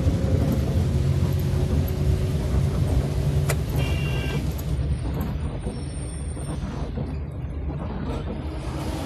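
Car engine and road noise heard inside the cabin while driving in heavy rain. A steady low rumble runs under a hiss of rain and wet tyres, and the hiss thins out about five seconds in. A sharp click comes just over three seconds in, followed by a brief high tone.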